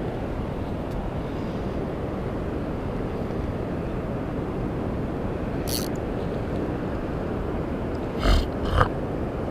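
Steady low rumble of wind on an action camera's microphone, with a short crackle about six seconds in and two brief knocks near the end.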